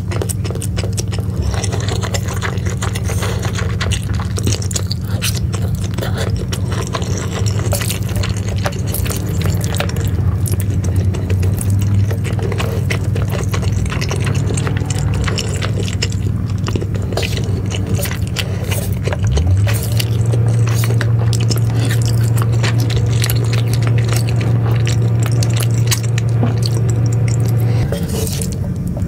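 Close-miked wet chewing and slurping of cheese-coated noodles, with many small mouth clicks. A steady low hum runs underneath, growing louder for the last third and dropping back just before the end.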